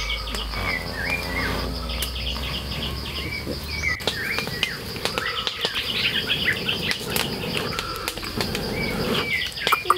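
Forest ambience: many small birds chirping and a steady high insect drone. For the first few seconds a low rush of breath is blown onto smouldering embers to raise the fire. Near the end there is a run of sharp clicks.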